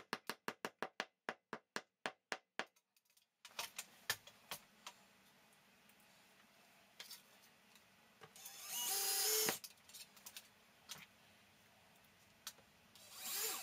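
Small rubber mallet tapping a plastic wall anchor into a drilled hole, light even taps about four a second that stop near three seconds in. Later come a few faint clicks and two brief whirring bursts, one around nine seconds in and one near the end.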